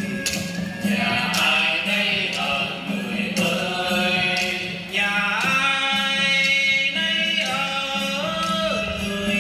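Live Vietnamese folk music from a stage ensemble: voices singing over traditional string instruments, with held, sliding notes and light percussion ticks keeping the beat.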